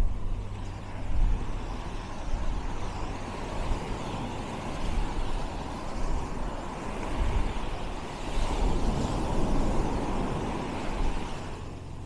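Wind rumbling on the microphone over the wash of small waves on a sand beach, swelling about two-thirds of the way through.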